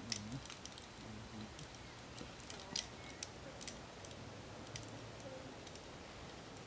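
Scattered light clicks and clinks, irregularly spaced with the sharpest about three seconds in, typical of climbing hardware such as carabiners and gear on a harness knocking together. A faint steady low hum lies underneath.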